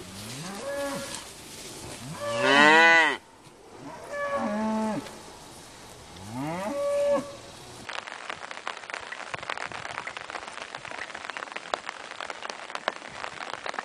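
Cattle mooing: four calls, each rising in pitch, the second the loudest. About eight seconds in, a cut gives way to a steady crackling noise scattered with small clicks.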